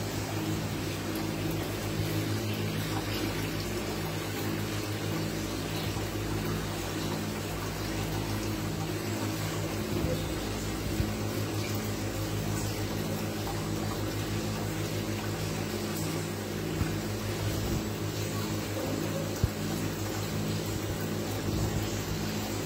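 Aquarium aeration: the steady low hum of an air pump with bubbles streaming from the air stones, and a few brief clicks.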